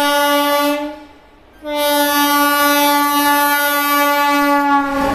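Indian Railways train horn: a short blast, then after a brief pause a long steady blast of about three seconds on one pitch. A rumbling noise takes over as it stops near the end.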